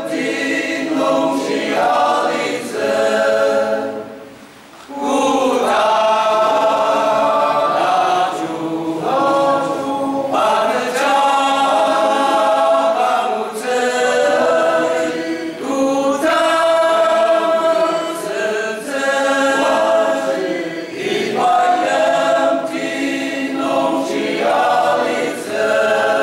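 Male choir singing a church hymn unaccompanied, several voices sounding together, with a short pause for breath about four seconds in.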